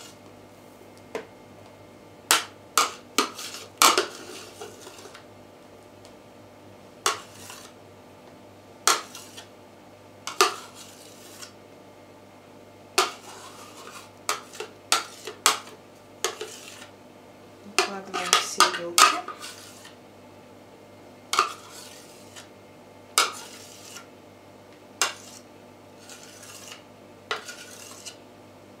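A spoon scooping whipped egg whites out of a blender beaker and tapping against its rim and the plastic mixing bowl: sharp, irregular clicks and knocks, with a quick run of them about two-thirds of the way in.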